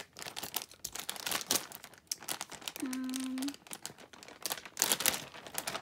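Clear plastic packaging bag crinkling and rustling irregularly as hands open it and pull pajamas out, with a short steady hummed tone about three seconds in.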